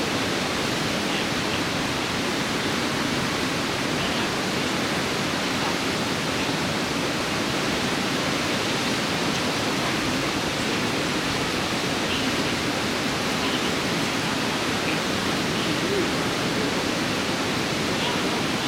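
Water rushing steadily over a river weir, an even, unbroken noise.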